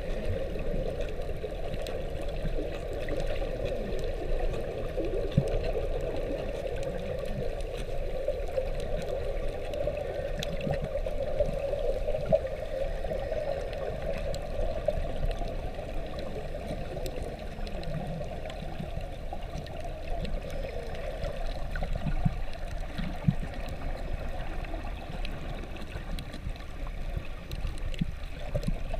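Muffled underwater water noise: a steady, dull rushing with a low rumble, picked up by a camera held underwater. A few soft knocks and faint scattered clicks come through it.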